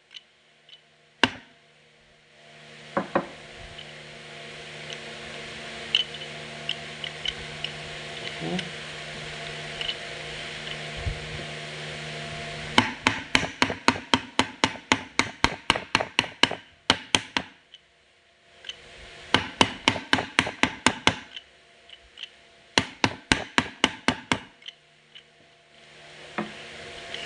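Runs of rapid sharp metallic clicks and knocks, about five a second, from a forklift transmission's clutch pack as it is turned and worked by hand to seat the clutch discs onto their splines. There are three runs, the first about halfway through.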